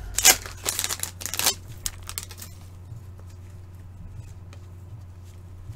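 Trading-card pack wrapper crinkling and tearing open for about a second and a half, followed by faint light clicks.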